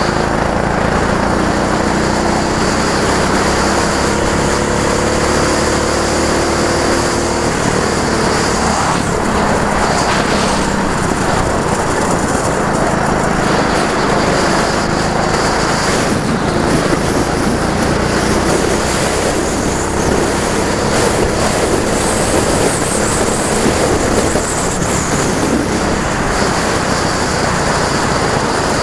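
Go-kart engine running hard on track, its pitch climbing for the first several seconds as it accelerates, then a steady dense engine and road noise.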